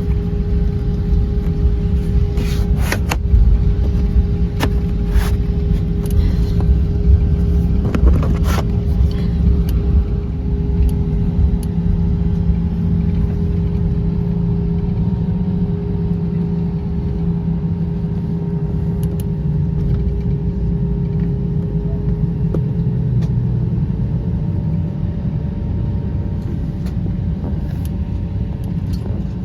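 Cabin noise of an Airbus A319 taxiing: a steady low rumble with a constant hum over it, and several sharp knocks or rattles in the first ten seconds.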